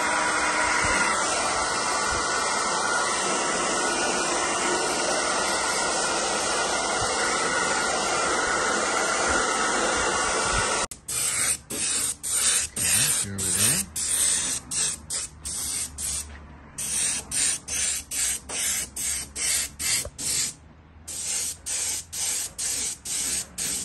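A hair dryer blows steadily on a clear polycarbonate RC car body shell, cutting off suddenly about eleven seconds in. Then an airbrush sprays in short hissing bursts, about two a second, laying a thin mist coat of paint inside the shell.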